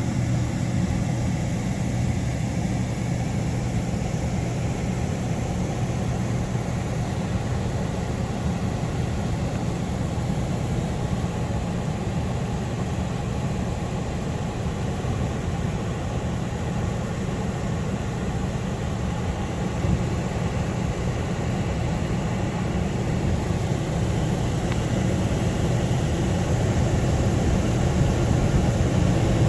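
Hydronic furnace air handler running with a steady low hum.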